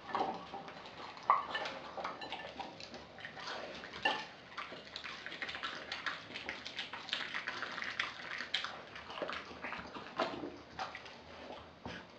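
Dog eating raw meat from a glass bowl: irregular wet chewing, smacking and lapping, with a few sharp clicks, the loudest about a second in and about four seconds in.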